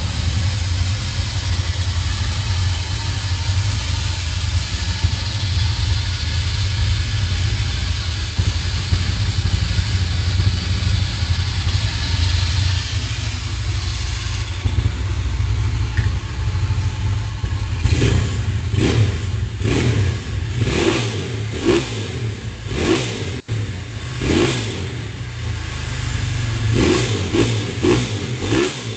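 Honda Tiger single-cylinder engine, bored up to about 250 cc and fed by a PWK 33 carburettor, idling steadily. From about two-thirds of the way in it is revved in a string of short throttle blips.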